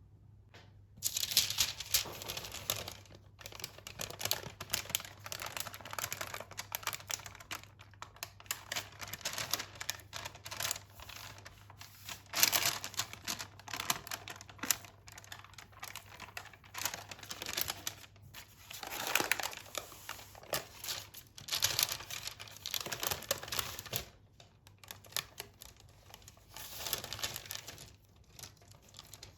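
Crinkling and rustling of something being handled, in irregular bursts with brief lulls.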